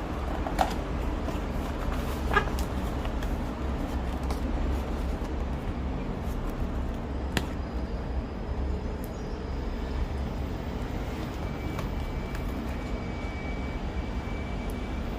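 Steady low rumble of an idling vehicle engine, with a few brief sharp clicks.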